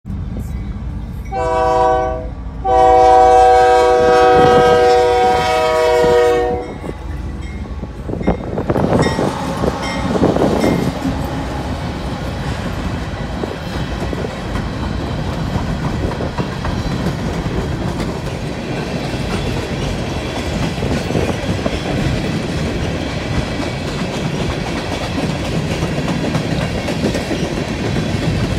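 Diesel freight locomotive's air horn sounding a chord of several notes: a short blast, then a long one of about four seconds. The locomotives' engines then rumble past, followed by a steady rolling rumble with clickety-clack as the empty coal hopper cars go by on the rails.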